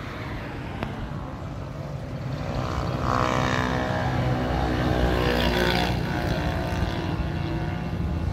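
Motor vehicle engine running with a steady low rumble, growing louder from about three seconds in and easing off again near the end.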